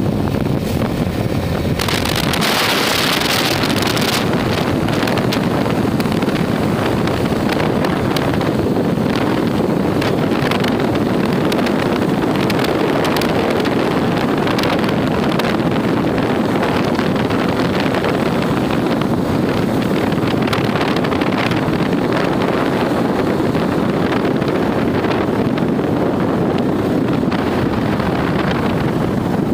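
Steady rush of riding wind on the microphone of a Bajaj Dominar 400 motorcycle cruising at road speed, with the bike's running and tyre noise mixed in. A stronger gust comes about two seconds in and lasts a couple of seconds.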